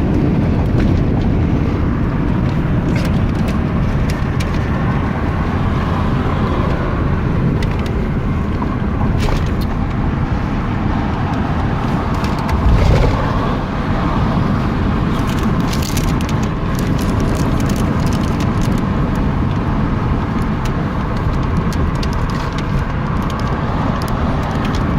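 Car driving along, a steady low rumble of road and engine noise, with a brief louder bump about halfway through.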